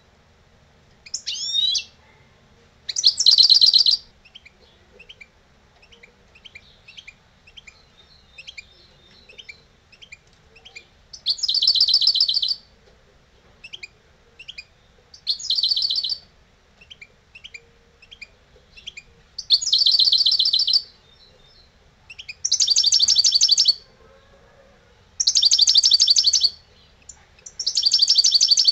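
A caged European goldfinch singing: loud, high, rapid trilled phrases about a second long, repeated every few seconds, with soft short twitters in between.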